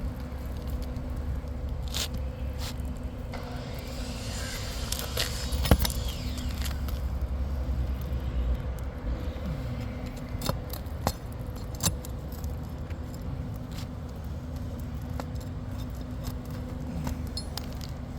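Hand work on an asphalt shingle roof: scattered sharp clicks and knocks with some scraping, the loudest knock a little before the middle, over a steady low rumble and a faint hum.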